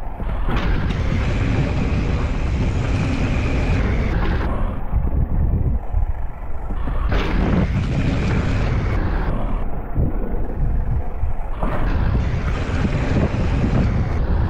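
Wind buffeting the microphone and the rumble of knobby mountain-bike tyres rolling fast over a dry dirt trail at about 15 to 19 mph. A strong low rumble runs throughout, with three surges of brighter hiss a few seconds long.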